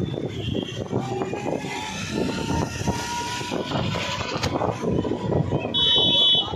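Auto-rickshaw ride heard from on board: the engine runs with a rough, fluttering rattle and road noise, under a faint steady whine. A short high-pitched horn beep sounds near the end.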